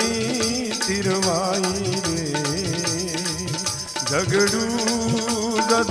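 Rajasthani chirja devotional music: a wavering melody line over a steady percussion beat with a shaker-like rattle.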